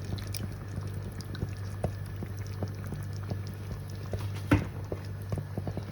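A pot of chicken korma simmering, its sauce bubbling with many small irregular pops over a low steady hum. There is one louder knock about four and a half seconds in.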